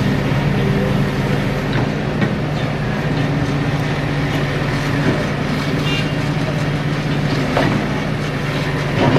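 Train running, with a steady low engine hum and scattered clicks over a wash of rolling noise.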